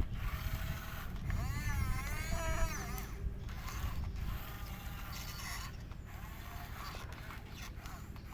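Heavy machinery working over a steady low diesel engine rumble, with metal creaks and squeals that waver up and down in pitch, loudest about one to three seconds in.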